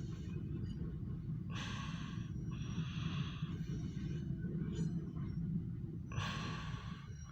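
Three breaths close to the microphone, about a second apart, then another near the end, over a steady low rumble.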